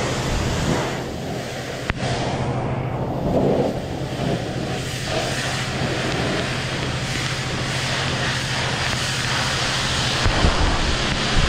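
Self-serve car wash high-pressure spray wand spraying water onto a car, a steady hiss with a low steady hum under it that stops about ten seconds in.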